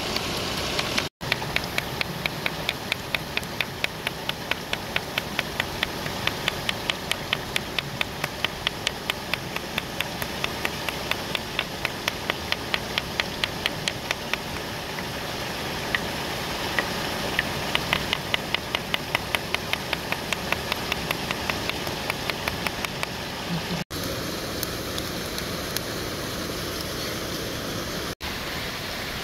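A hand-held stone knocking rapidly on a flat rock, about three knocks a second, as it pounds tomatoes and chillies, over the steady rush of a mountain stream and waterfall.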